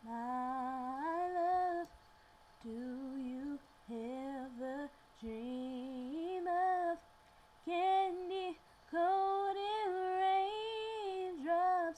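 A woman singing unaccompanied, in about seven short melodic phrases with brief pauses between them and no words picked out, sliding between notes.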